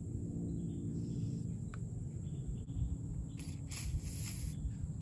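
Aerosol can of PB Blaster penetrating oil spraying onto rusted exhaust manifold bolts: a few short hissing bursts in the second half, over a faint steady low background.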